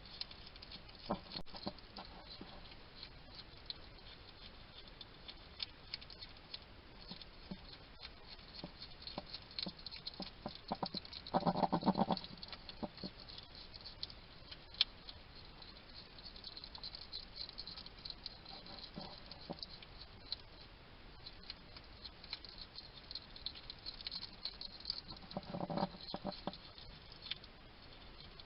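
Wild European hedgehog eating: steady small crunching and clicking of chewing, with a few short calls, the loudest about twelve seconds in.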